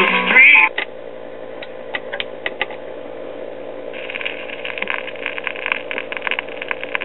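RCA Victor 45 rpm record changer cycling to the next record. The music cuts off about half a second in, then several sharp mechanical clicks come as the next record drops and the tone arm sets down, over a steady hum. From about four seconds in, a fine crackle of the stylus riding the record's lead-in groove.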